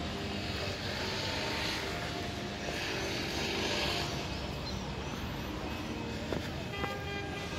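Outdoor harbour noise: a steady low rumble with a hiss that swells and fades about two to four seconds in, and a couple of faint knocks near the end.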